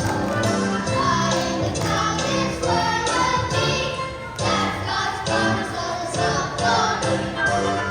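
Children's song music with a steady beat and a choir singing over it.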